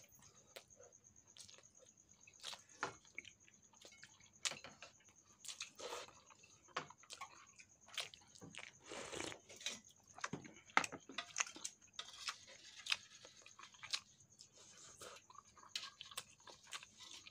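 Chewing and mouth noises of people eating rice and fish with their hands, with scattered small clicks and taps at irregular intervals. A faint, steady high whine runs behind.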